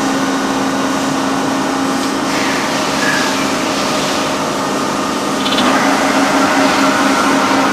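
Csepel YBM 90 N horizontal machining centre running: a steady mechanical hum with a low steady tone, which grows louder about five and a half seconds in.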